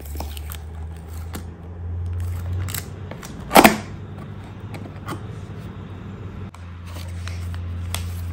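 Unboxing handling noise: fingers peeling the seal sticker off a cardboard camera box, with one loud, short crackle a little over three and a half seconds in, then light taps and paper rustles as the box is opened. A steady low hum runs underneath.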